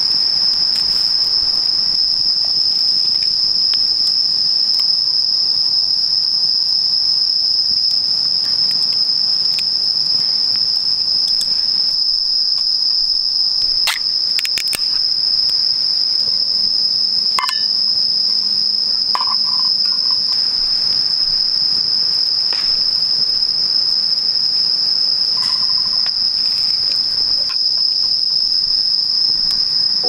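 Chorus of crickets trilling without a break: one steady, high-pitched drone. A few light clicks come about halfway through.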